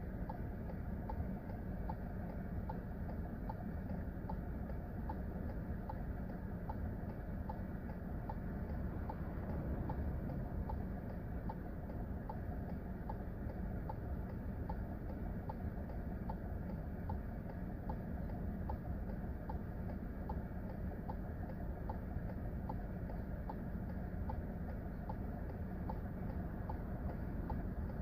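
Car interior noise: a steady low engine and road rumble, with a faint, evenly spaced ticking running over it.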